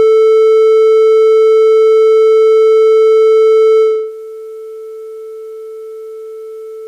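A synthesized test tone holding one steady note with a bright series of overtones, loud for about four seconds. It then drops in volume and loses much of its top end, with a faint hiss of white noise added, simulating headphones being taken off the ears.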